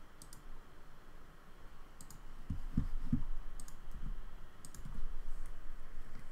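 Computer mouse clicking, several clicks mostly in quick pairs like double-clicks, with a few soft low thuds in between.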